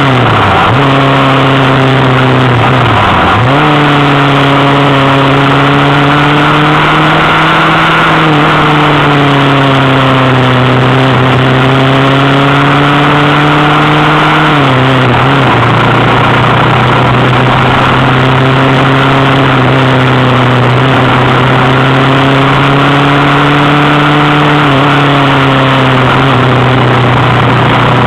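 Motorcycle engine running under way, with wind rush on the microphone. Its pitch dips sharply twice in the first few seconds, then holds steady and drops a step about halfway.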